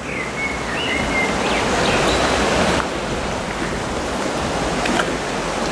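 Steady rushing of a fast-flowing mill stream running through a walled channel.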